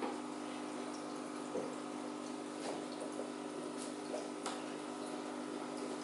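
Aquarium filter or pump running with a steady hum and water trickling, with a few faint clicks or drips.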